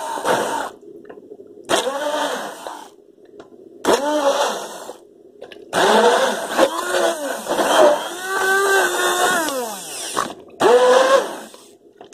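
Cheap Asda Smart Price stick blender run in five short bursts in a pot of chunky vegetable soup, its motor pitch wavering and sliding while it runs. The longest burst lasts about four seconds and winds down with a falling pitch near the end.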